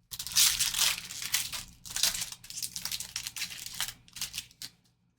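A trading card pack wrapper being torn open and crinkled by hand, in a run of irregular crackling rustles that stops a little before the end.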